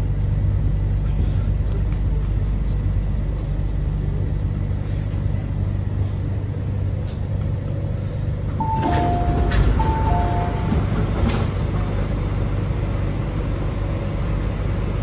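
Steady low hum inside an MTR C-train car. About nine seconds in, the door chime sounds twice, each time a short high note falling to a lower one, with a few clunks from the doors as they open.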